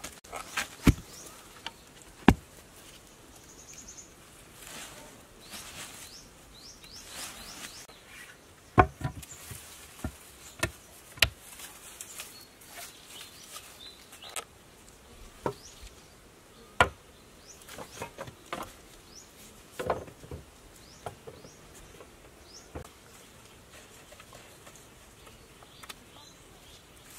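Irregular sharp knocks and taps of bamboo and wooden poles being handled and set in place, a dozen or so spread unevenly. Faint high chirping runs underneath.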